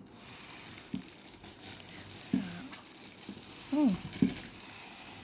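Packaging rustling and crinkling while an air purifier is handled out of its box, with a few light knocks. A short vocal sound comes about four seconds in.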